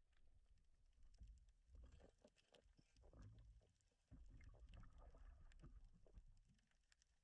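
Faint, muffled underwater sound: a low rumble of water moving against the camera housing, with scattered small clicks and knocks from the gear being handled. The rumble grows louder about four seconds in.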